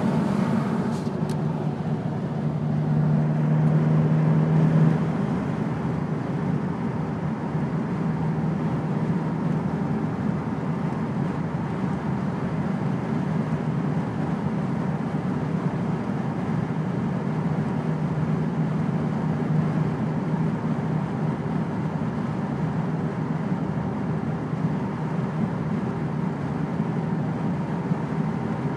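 A 2002 Ford Focus being driven: steady engine and road noise, with a low hum that is strongest from about two to five seconds in and a couple of faint clicks about a second in.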